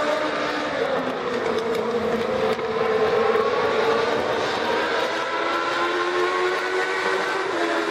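Several Legends race cars' Yamaha four-cylinder motorcycle engines running at racing speed on an oval, their overlapping engine notes slowly rising and falling as the cars go through the turns.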